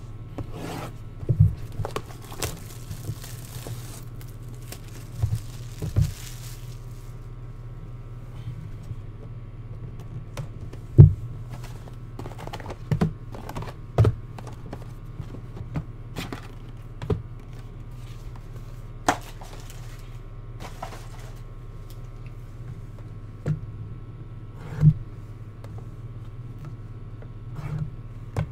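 Trading-card hobby box being unwrapped and opened by hand: clear plastic shrink-wrap crinkling and tearing at first, then scattered knocks and thuds of cardboard as the small boxes inside are handled and set on the table, the sharpest knock about a third of the way in. A steady low hum runs underneath.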